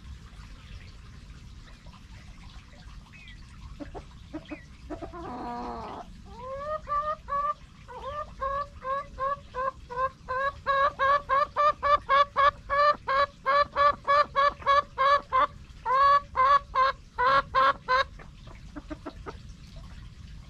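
A hen clucking a long run of short repeated calls, each rising in pitch, about three a second, getting faster and louder for around twelve seconds before stopping. A brief rustle comes just before the calls start.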